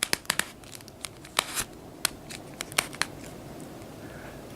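Plastic Mechagodzilla toy figure being handled as its tail joint is turned: a string of sharp plastic clicks over about three seconds, then only a few faint ones.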